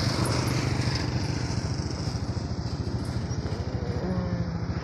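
A small vehicle engine running steadily close at hand, with a rapid, even putter of firing pulses as the vehicle moves slowly along.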